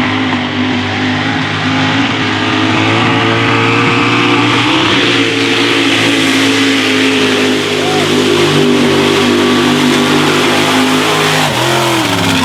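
Mega truck engine held at high revs under full throttle as the truck ploughs through a deep mud pit. The pitch stays steady, then drops and climbs back up near the end.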